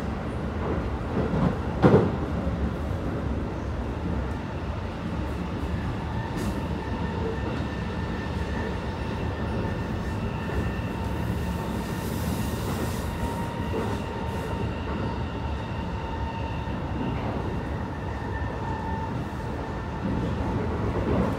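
Keikyu 1000 series electric train with Mitsubishi full-SiC VVVF traction, heard from inside the car, running at steady speed: a continuous rumble of wheels on rail with a faint steady whine. A sharp thump comes about two seconds in, and the noise gets louder near the end.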